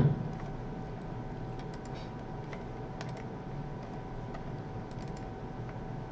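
Sparse, faint computer keyboard keystrokes, a few scattered clicks, over a steady faint electrical hum.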